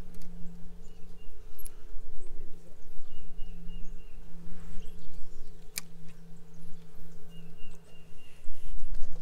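A steady low hum runs throughout, with wind rumbling on the microphone. Three times a short run of high chirping notes sounds, and there is a single sharp click a little past halfway.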